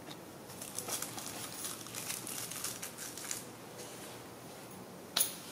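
Soft rustling and scuffling of fabric as a puppy is set down on a cloth pillow and a baby macaque moves on it, in short scratchy bursts, with one sharp click near the end.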